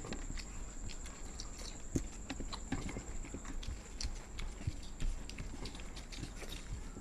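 People eating with their mouths close to the microphone: chewing, with irregular wet mouth clicks and smacks. A faint steady high-pitched whine runs underneath.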